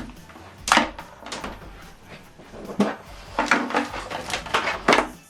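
Several sharp knocks and clicks of hands handling gear: an optical (TOSLINK) audio cable being unplugged from a soundbar.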